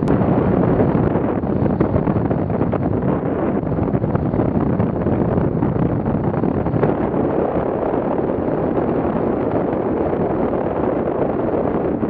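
Airflow rushing over the microphone of a hang glider's camera in flight: steady, gusting wind noise.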